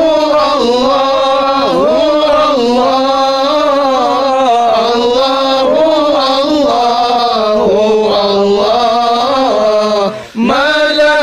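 A solo male voice singing an Arabic Sufi devotional chant of the Naqshbandi order, drawing out one long wavering melodic line with no distinct words, broken by a short breath about ten seconds in.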